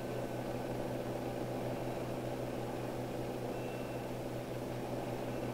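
Steady low hum and hiss of an old film soundtrack, unchanging throughout, with no distinct events.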